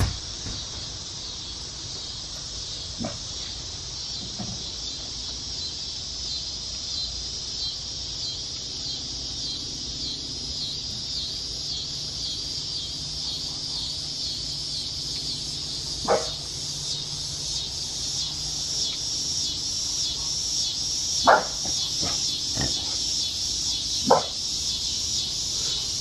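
Steady, high-pitched chorus of insects, finely pulsing, with a few short sharp sounds scattered through it, the plainest about halfway through and in the last few seconds.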